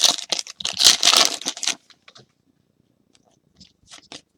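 Trading-card pack wrapper crinkling and cards being handled, in rough bursts for the first couple of seconds, then a few light clicks near the end.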